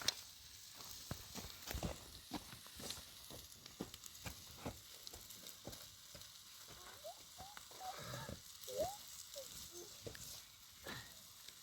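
Food sizzling and frying in a hot pan: a steady hiss with scattered crackles and pops. A few faint short chirps come through near the middle.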